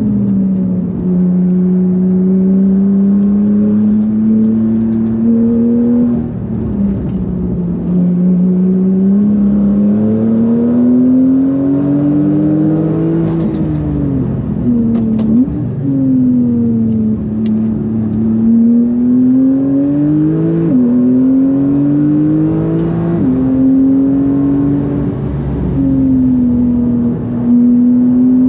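Porsche 991.2 Carrera GTS twin-turbo flat-six, fitted with bigger turbos, under hard acceleration on track. The engine note climbs through each gear and falls sharply at the upshifts, with quick upward jumps near the end where it changes down.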